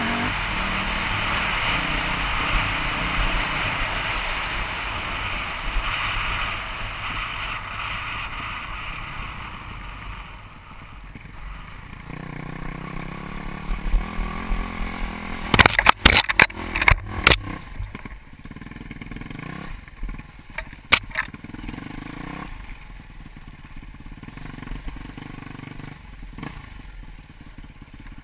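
Dirt bike engine running on a trail ride, with heavy wind rush on the helmet-mounted microphone for the first ten seconds or so. The bike then slows, and from about the middle a series of sharp knocks and rattles comes as it jolts over rough ground.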